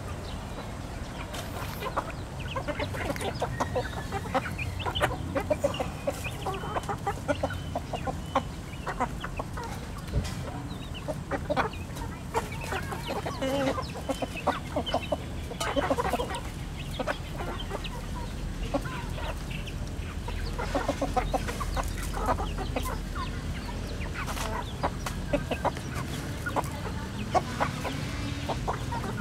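A flock of chickens clucking softly as they feed, with many quick taps of beaks pecking grain off the ground.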